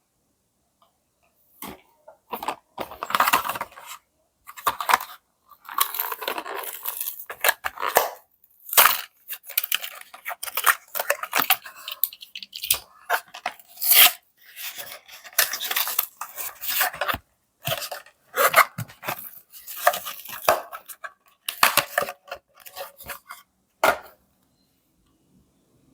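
Toy packaging being torn open by hand: irregular ripping and crinkling of card and plastic in repeated bursts, starting about two seconds in and stopping near the end.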